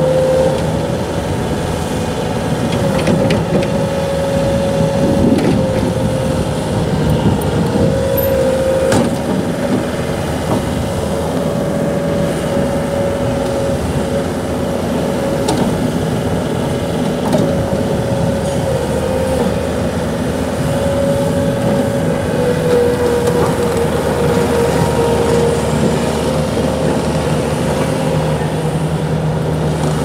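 2006 Bobcat T250 compact track loader working: its diesel engine runs steadily under throttle, with a steady whine whose pitch sags briefly now and then as the machine takes load. A few sharp clanks come early on.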